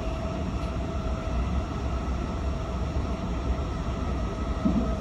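Interior running noise of a JR West 223 series electric train: a steady low rumble with a faint steady whine that fades out about three seconds in.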